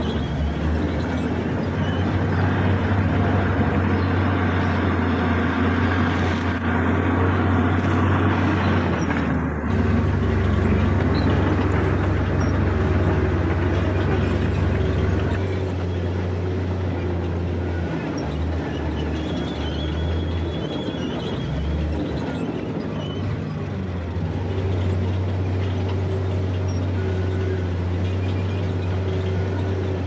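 Heavy bulldozer diesel engine running steadily under working load, with its note shifting a third of the way through and again about halfway.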